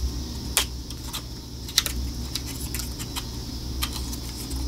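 Lip gloss tubes and their boxes being handled: a handful of sharp little clicks and taps spread over a few seconds, over a steady low hum.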